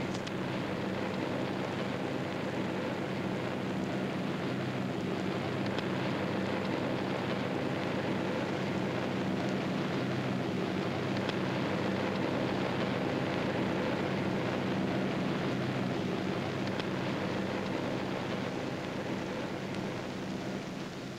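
Steady drone of propeller aircraft engines, fading out near the end.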